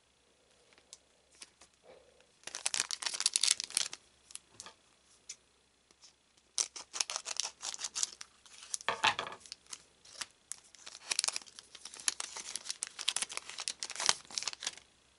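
A trading-card booster pack wrapper being crinkled and torn open, in bursts of crackling: a short one about two and a half seconds in, then a longer run from about six and a half seconds on, with its loudest tear about nine seconds in.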